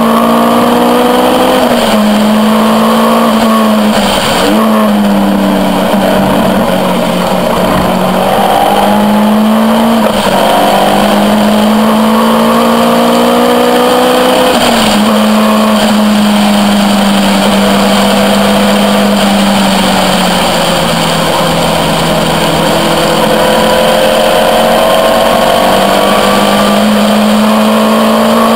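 Caterham R400's four-cylinder engine pulling hard at high revs under full throttle, its pitch climbing steadily and then dropping sharply at each gear change, several times over.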